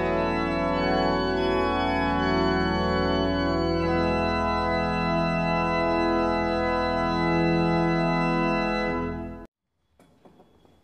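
Church pipe organ playing sustained full chords over a deep pedal bass, the harmony changing about four seconds in. Near the end the organ sound cuts off abruptly, leaving faint room tone with a few soft clicks.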